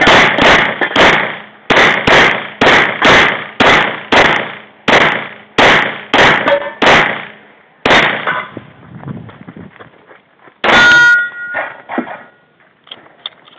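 Rapid semi-automatic pistol fire at steel plate targets: about sixteen shots, one every half second or so, with metallic clangs. After a pause of a couple of seconds there is a single sharp metallic bang that rings on, followed by a few light clicks.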